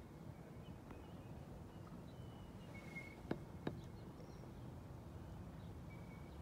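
Quiet open-water ambience: a steady low rumble, a few short high bird whistles, and two sharp knocks about half a second apart just past the middle.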